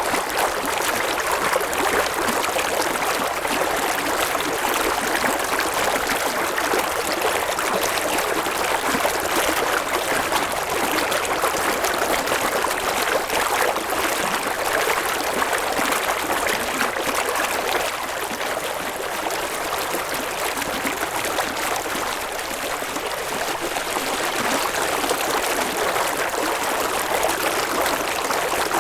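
River water flowing steadily over rocks, a continuous babbling rush.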